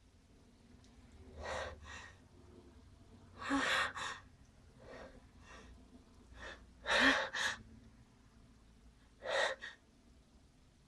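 A person's short, sharp gasping breaths, the catching inhalations of a sneeze building up, coming irregularly about nine times with the loudest pair a little past halfway.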